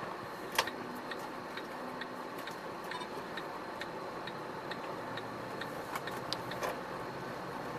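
Turn-signal indicator ticking inside an Iveco Stralis truck cab, evenly at about two ticks a second, over a steady background of the cab: the truck is signalling a turn.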